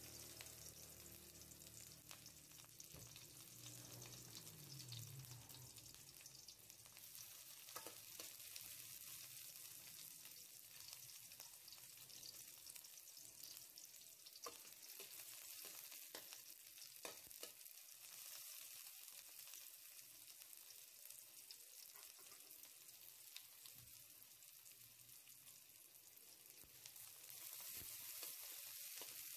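Faint sizzle of onion and garlic frying in oil in a metal wok, with a slotted metal ladle stirring and now and then clicking against the pan. Near the end the sizzle grows louder as tomato slices go into the hot oil.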